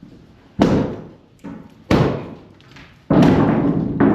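Sledgehammer blows on old wooden stair framing: three heavy hits about a second and a quarter apart, with a lighter knock between the first two, the last one lasting about a second.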